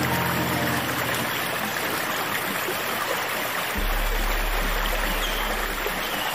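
Steady rushing of running stream water, an even hiss with no break. Soft low sustained music tones fade out in the first second and a deep low drone comes in a little past halfway.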